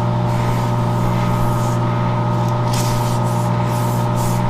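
Lathe running with a steady hum while worn sandpaper is held against the slowly turning crankshaft of a Speedaire 5Z404 air compressor, polishing it and giving a hissing rub that swells briefly two to three seconds in.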